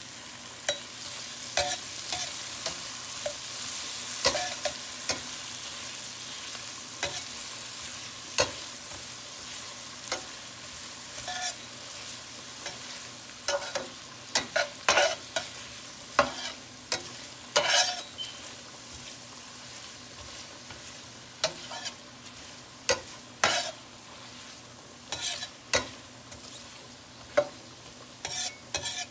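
Sliced onions and garlic sizzling in melted butter in a stainless steel frying pan, stirred with a metal slotted spatula that clicks and scrapes against the pan many times. The sizzle eases gradually.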